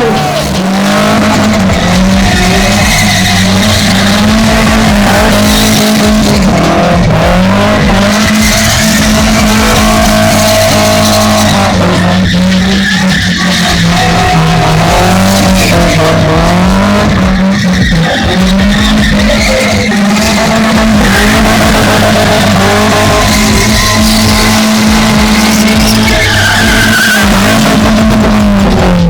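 BMW spinning in continuous tyre-skidding doughnuts. The engine is held at high revs, dipping and climbing back every couple of seconds.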